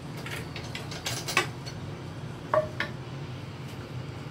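Kitchen utensils and cookware being handled by the stove: a few knocks and clatters, loudest about a second in, then a short ringing clink about two and a half seconds in, over a steady low hum.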